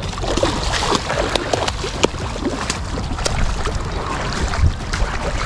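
Water splashing in shallow water as a hooked stingray thrashes at the surface, in many short irregular splashes. A low rumble of wind on the microphone runs under it.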